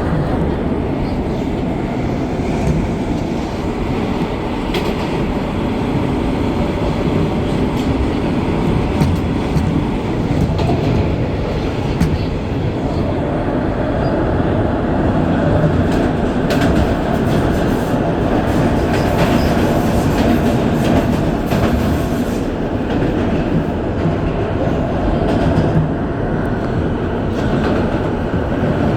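R160 subway car running at speed, heard from inside the car with its air-conditioning off: a steady rumble of wheels on rail with scattered clicks and clatter from the track.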